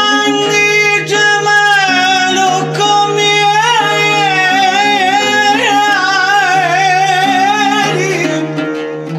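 A male nasheed singer performs a sung Arabic poem, holding long melismatic notes with a wavering vibrato over sustained low instrumental accompaniment. The voice drops out near the end.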